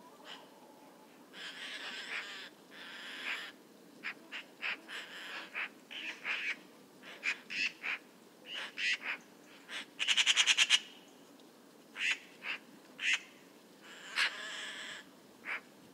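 Eurasian magpies calling in short, scattered calls, with a loud fast chattering rattle about ten seconds in.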